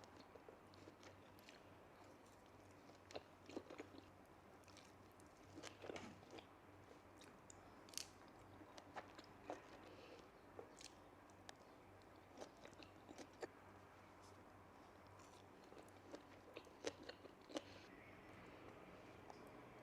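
Quiet, close-up chewing of sushi, with irregular small clicks and wet mouth sounds.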